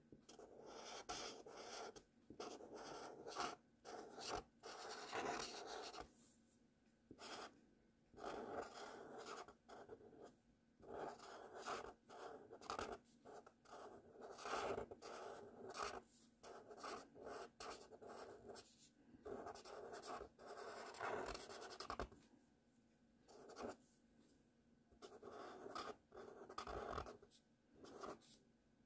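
Felt-tip marker scratching across paper while cursive letters are written, in strokes of a second or two with short pauses between them.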